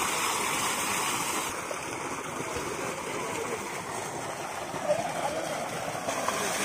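Steady rush of a tube well's water jet pouring from its outlet pipe into a concrete bathing tank, with the churn and splashing of water around the bathers.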